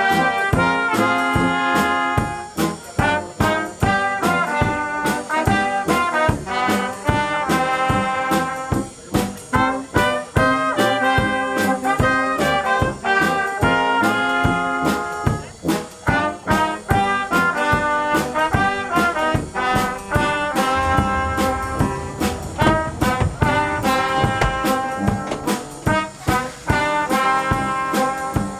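Brass-band music: horns playing a melody over a steady beat.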